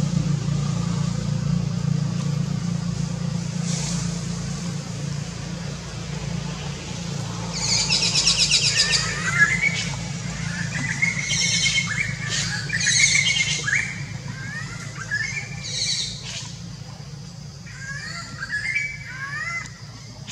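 Low steady engine hum of passing vehicle traffic that slowly fades, then from about seven seconds in, birds chirping and trilling in several short bouts of quick rising notes.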